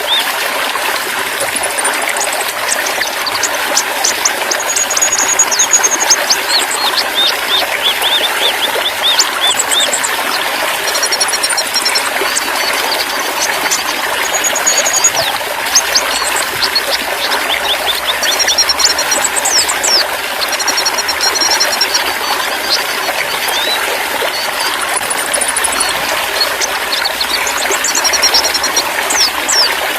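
Steadily trickling running water, with small songbirds chirping and whistling in quick, short high notes over it.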